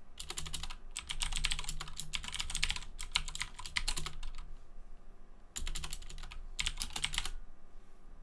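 Typing on a computer keyboard: quick runs of key clicks, with a break of about a second and a half in the middle before a last couple of runs.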